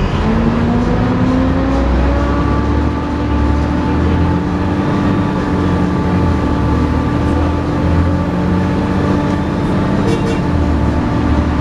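Volvo B7TL double-decker bus engine pulling hard. Its pitch rises over the first couple of seconds and then holds steady, under a high steady whine: the "hoovering" this bus is known for.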